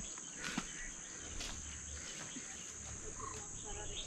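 Steady high-pitched drone of insects, with a few faint ticks.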